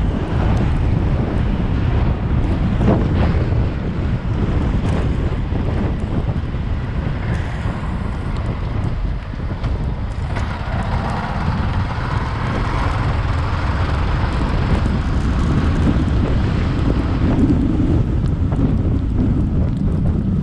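Strong wind buffeting the microphone in a dense, steady rumble.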